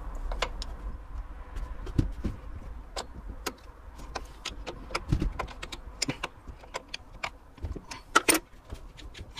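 Small metal spanner clicking and clinking as it works the mounting nuts of a Weber carburettor, in scattered irregular clicks, with a louder clatter about eight seconds in.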